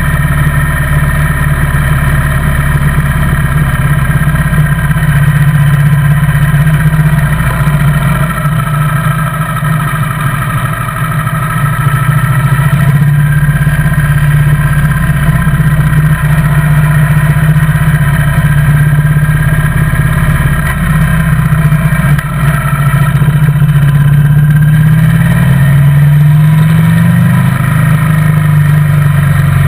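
Motorcycle engine running steadily under way, heard from the bike carrying the camera. Its pitch shifts up and back down near the end.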